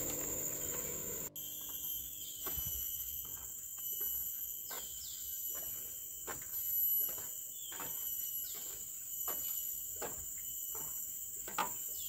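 Steady high-pitched drone of forest insects, with footsteps on the trail about every half second to second and a short falling call repeating every second or two.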